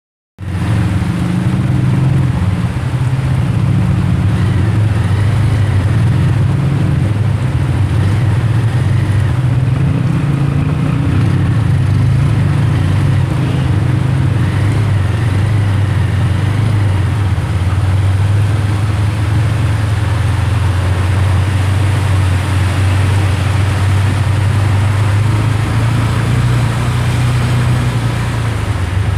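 Steady low drone of a vehicle engine running, under the even hiss of heavy rain pouring onto a flooded road, heard from an open-sided vehicle.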